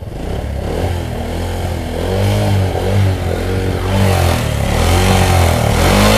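Honda Future II motorbike's single-cylinder four-stroke engine being revved with the throttle, its pitch climbing and dropping about once a second and growing louder toward the end. It is a freshly rebuilt engine that shakes hard enough to numb the hands on the bars.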